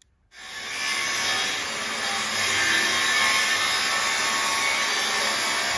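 Corded handheld power tool working a wooden plank. It starts about a third of a second in, builds over the next second, then runs steadily.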